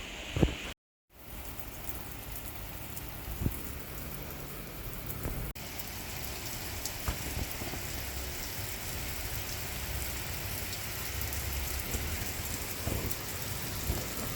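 Heavy torrential rain pouring down steadily on the roads and surfaces. A short, sharp low thump comes about half a second in, followed by a brief gap of silence, and another low thump about three and a half seconds in.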